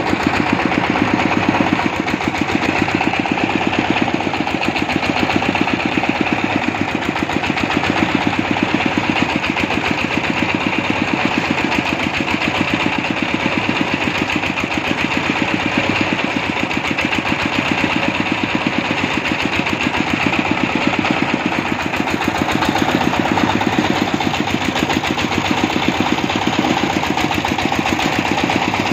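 Engine of a water-well boring rig running steadily with a fast, even beat.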